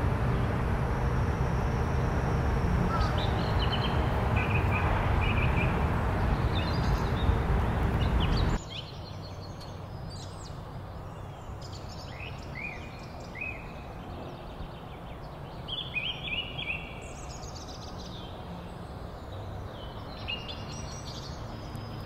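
Wild birds chirping and calling outdoors. For the first eight and a half seconds the calls sit over a louder, steady low rumble of background noise. That noise then cuts off suddenly, leaving the chirps clearer over quiet outdoor ambience.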